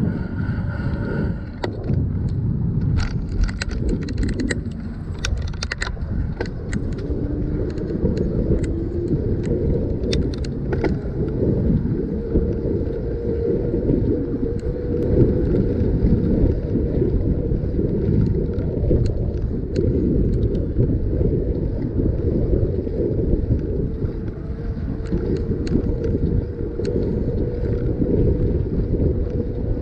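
Ride noise of a bicycle rolling onto and across a pedestrian-bicycle bridge: low wind buffeting on the microphone and tyre rumble, with a run of sharp clicks and rattles between about three and eleven seconds in. A steady hum joins the rumble about twelve seconds in.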